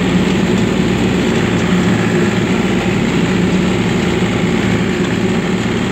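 John Deere 3025E compact tractor's three-cylinder diesel engine running steadily as the tractor drives across the hayfield, heard close up from the driver's seat.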